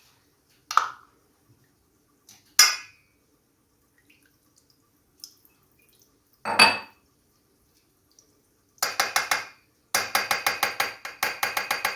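Kitchen utensils clinking against dishes as freshly squeezed lemon juice is strained into a saucepan: a few separate clinks and knocks, then about three seconds of quick repeated scraping strokes of a spoon against a strainer near the end.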